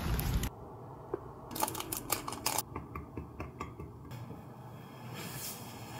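Light metallic clicks and taps of a thin metal stirrer against a steel spoon while mixing a small dose of medicine: a quick run of sharp clicks for about a second, then softer scattered ones. A burst of outdoor background noise cuts off half a second in.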